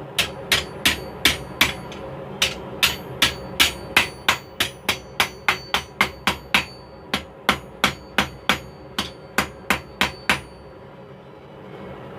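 Hand hammer striking hot steel on an anvil, about three blows a second with two short pauses, the anvil ringing on each blow: forging out the handles (reins) of blacksmith tongs. The blows stop near the end.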